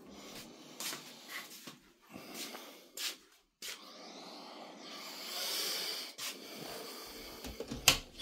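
Fabric rustling and rubbing close to a phone's microphone, with scattered small clicks and knocks and one sharp knock near the end.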